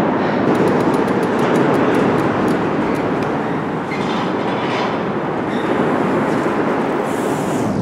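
A subway train crossing the elevated bridge overhead: a steady loud rumble with faint rapid clicking of the wheels over the rail joints.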